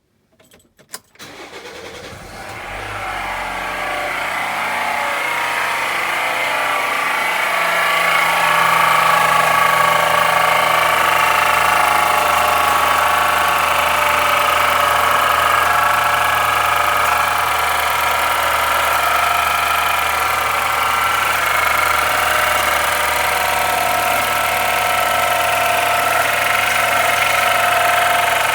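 Honda City engine cold-starting: a few clicks, then it catches about a second or two in and settles into a steady idle. A strong mid-pitched whine runs over the engine sound, getting louder over the first several seconds; it is the unexplained cold-start noise the owner is asking about.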